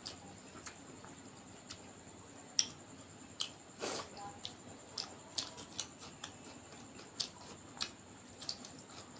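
Close-miked eating sounds: wet mouth smacks and clicks while chewing duck curry and rice, coming as a dozen or so short, irregular sounds.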